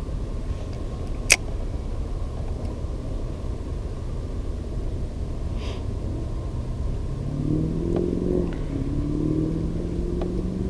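A steady low rumble with one sharp click about a second in; from about seven seconds an engine's hum comes in and slowly rises in pitch.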